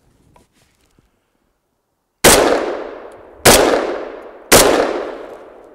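Three .308 Winchester shots from a Kel-Tec RFB bullpup rifle, fired about a second apart starting a little over two seconds in, each trailing off in a long echo.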